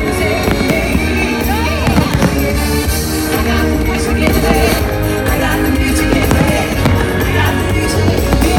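Music playing loudly and steadily for a fireworks show, with scattered bangs of fireworks bursting over it.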